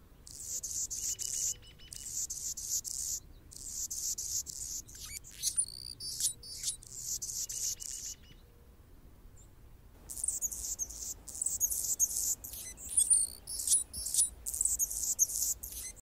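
Anna's hummingbird singing from a perch: a high, rapid, scratchy song in repeated phrases with quick sweeping notes. The song breaks off for about two seconds midway and then resumes.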